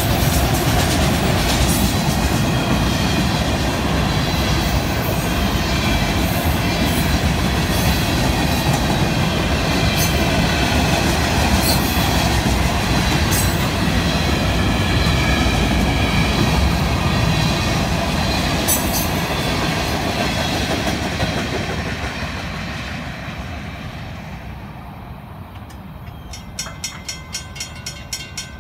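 Freight cars of a long train rolling past at a grade crossing, with steady wheel and rail noise and sharp clicks as the wheels cross rail joints. The noise fades away after about 22 seconds as the end of the train passes. Near the end the crossing's warning bell rings with rapid, even strokes.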